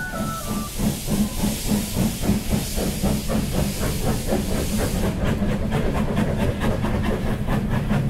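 Steam train passing: a loud hiss of escaping steam over a fast, even chuffing rhythm of about four to five beats a second. The hiss stops about five seconds in while the rhythmic chuffing goes on.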